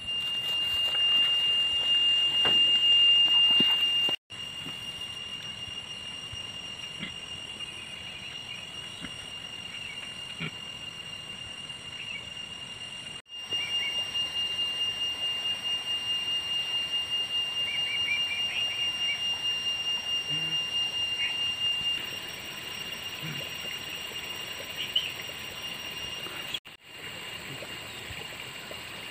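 Insects outdoors making one steady, high-pitched, whining drone that is louder in some stretches than others.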